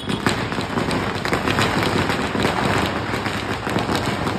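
Firecrackers going off in a rapid, dense string of pops and crackles that doesn't let up, lit on the ground just before.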